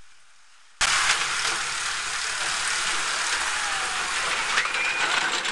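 Small steel family roller coaster train rolling and clattering along its track, starting suddenly under a second in as a steady rushing rattle. A brief high squeal comes about four and a half seconds in.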